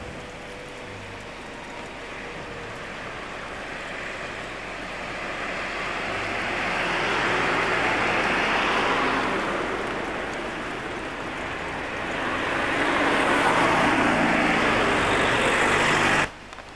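Cars driving past on a road, their tyre and engine noise swelling as each one nears: one passes about eight seconds in, and another swells from about twelve seconds until the sound cuts off suddenly near the end.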